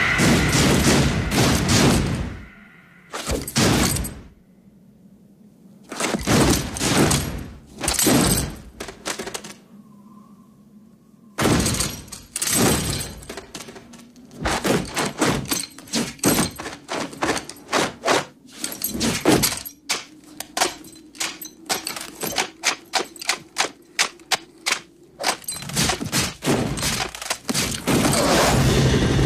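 Many soldiers' boots stamping together, heavy thuds at first spaced out with quiet gaps, then coming faster and closer together. It gives way to a continuous loud noise near the end.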